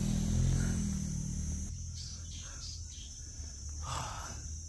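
A motorcycle's engine runs with a low hum and cuts off abruptly about a second and a half in. Insects call throughout in a high, steady drone.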